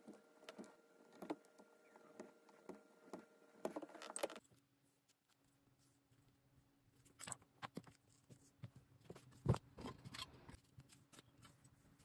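Faint clicks and taps of leatherworking at a bench. About two or three light clicks a second run over a faint steady hum, then the hum drops out suddenly a little over four seconds in. Scattered knocks follow, the loudest about nine and a half seconds in.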